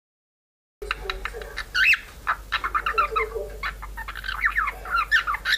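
Budgerigar warbling and chattering: a fast, busy run of short chirps and squawky notes that starts abruptly just under a second in, after silence.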